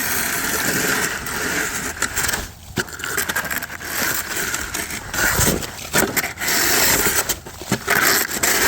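Plastic snow shovel scraping and pushing wet slush across the ground in several strokes, with brief pauses between them.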